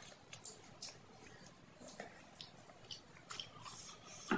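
Close-miked chewing of chole bhature, with small wet mouth clicks and smacks. Near the end comes a louder wet crackle as a torn piece of bhatura is pushed into the chickpea curry.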